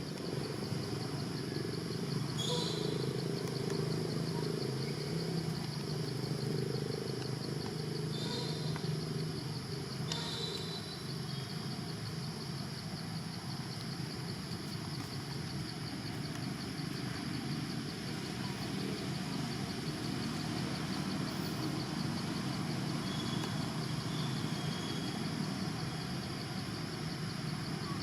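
Steady outdoor ambience: a continuous high, finely pulsing insect drone over a low rumble, with a few brief high chirps about two and a half, eight and ten seconds in.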